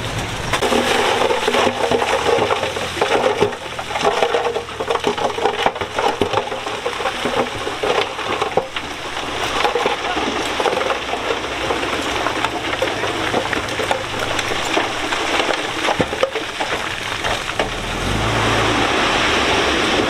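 Loose stone crunching and sliding as heavy diesel machinery moves it: a dense crackling rush over a diesel engine running. The engine's low note grows louder near the end.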